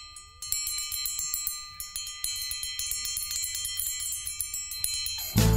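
Small bells jingling and chiming in the intro of a Christmas song, with many quick strikes, steady ringing tones and a low hum beneath. Near the end a full band comes in loudly.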